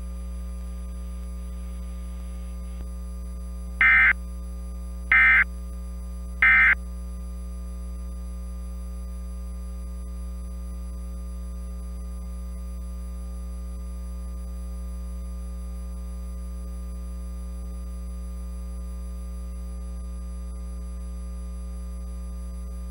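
Emergency Alert System end-of-message signal: three short, shrill data bursts about a second apart, starting about four seconds in, the SAME 'NNNN' code that closes a broadcast alert. A steady electrical hum runs underneath throughout.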